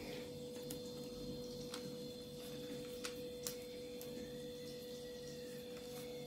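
Faint steady electrical hum of room tone, with a few soft light taps from hands handling dough on baking paper.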